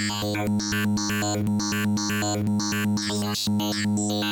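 Distorted wavetable synthesizer tone from Kilohearts Phase Plant, held on one low pitch while a stepped LFO sweeps through the wavetable, so its upper timbre jumps in a repeating pattern a few times a second: the raw start of a synthesized sci-fi engine sound.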